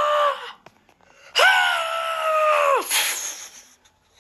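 A child's high-pitched scream, held at one pitch, ends about half a second in; a second long scream follows from about a second and a half to near three seconds and drops in pitch as it ends, then a short breathy burst.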